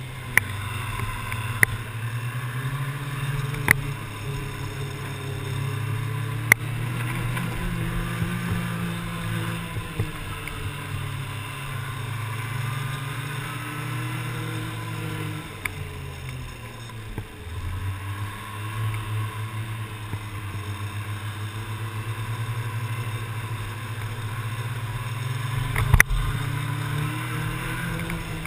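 Snowmobile engine running steadily while riding a trail. Its pitch eases off about two-thirds of the way through and then climbs again, and a few sharp knocks from the ride come through, the loudest near the end.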